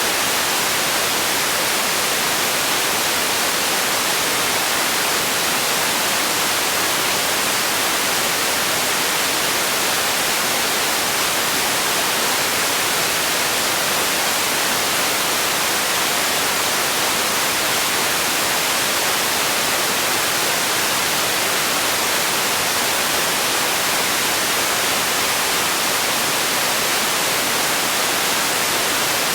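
Steady, unchanging white noise: a constant bright hiss, strongest in the highs and thin in the bass.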